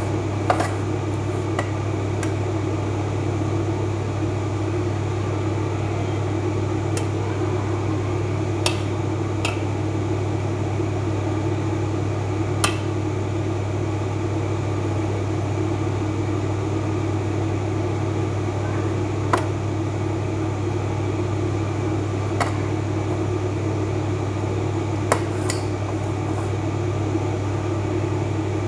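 Steady hum of a kitchen appliance's fan or motor, with a few short, light clinks scattered through, like dishes or utensils being touched.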